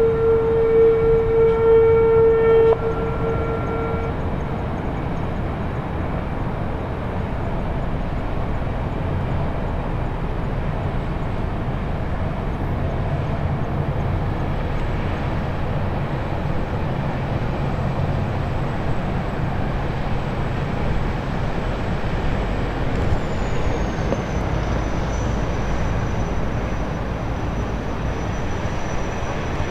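Foilborne jetfoil passing at speed, its gas turbines and waterjets making a steady rushing noise with a low rumble. It opens with a loud, steady horn blast that cuts off about three seconds in.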